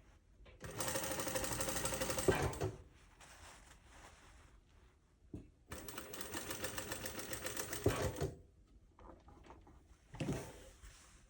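Sewing machine stitching in two runs, the first about two seconds long and the second about two and a half, each a fast, even rattle of needle strokes. Short knocks fall between and after the runs.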